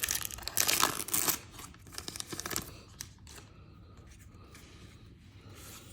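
A trading-card pack wrapper being torn open and crinkled: dense rustling and tearing for the first second and a half, a few more crinkles about two seconds in, then only faint handling.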